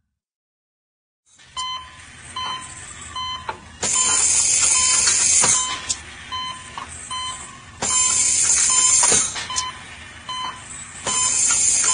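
Operating-room heart monitor beeping, short high electronic beeps about twice a second, starting after a moment of silence. Three times the beeps are drowned by loud bursts of hissing noise.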